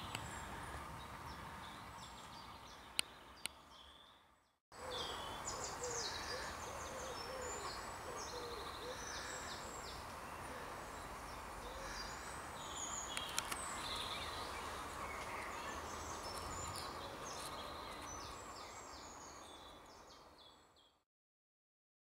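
Woodland birdsong from several birds: high, rapidly repeated notes and trills, with a low wavering call partway through. The sound drops out briefly about four and a half seconds in, then fades out near the end.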